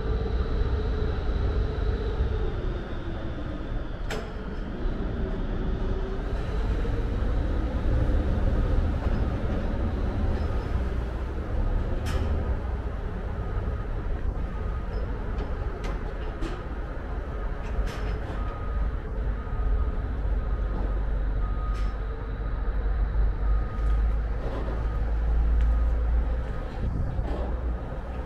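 Ferry engines rumbling as an NYC Ferry boat manoeuvres in beside the landing. The engine note falls and rises a little early on, and the rumble grows louder near the end. A few sharp metallic clicks are heard.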